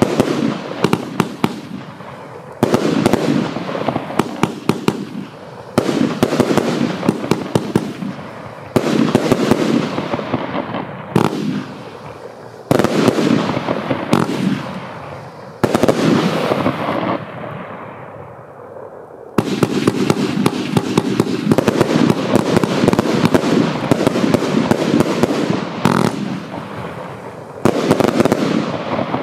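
Riakeo 'Shameless' 101-shot, 30 mm F2 compound firework firing: volley after volley of sharp bursts, each followed by dense crackling that fades away. A fresh volley comes every two to four seconds.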